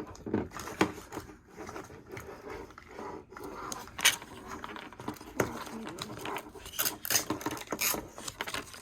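Small plastic toy pieces and their packaging being handled and opened, with scattered clicks, taps and short scrapes.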